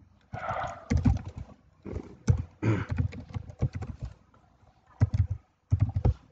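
Computer keyboard being typed on: a run of uneven key clacks with short pauses, then a last quick burst of keystrokes near the end.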